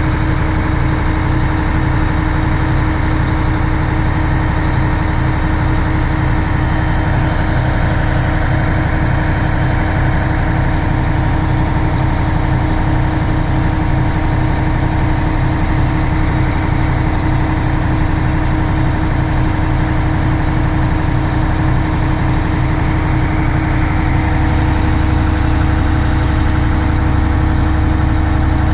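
Engine of a 36-metre truck-mounted concrete pump running steadily while it powers the hydraulics that unfold the boom, the low rumble growing a little heavier near the end.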